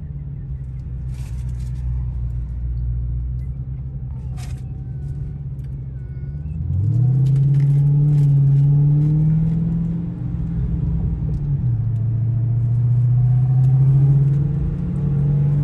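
Dodge Hellcat Redeye's supercharged 6.2-litre V8 at a low, rumbling cruise, then accelerating hard about seven seconds in with a quick rise in pitch and loudness, easing off near ten seconds and building again toward the end.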